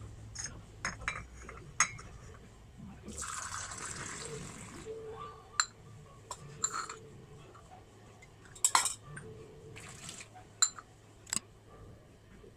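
Tea poured for about two seconds, among several sharp clinks and knocks of dishes and utensils.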